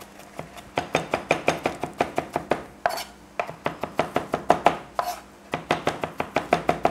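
Chef's knife chopping fresh spinach leaves on a plastic cutting board: a fast, even run of knocks, about six a second, broken by two short pauses, as the spinach is minced fine.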